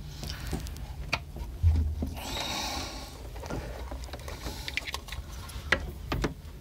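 Handling noises of tools and parts during a fitting job: scattered clicks and knocks, a dull thump just under two seconds in, and a short rustle right after it.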